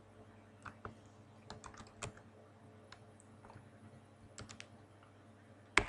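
Computer keyboard keys clicking in scattered, irregular taps, with one sharper, louder click near the end, over a faint steady electrical hum.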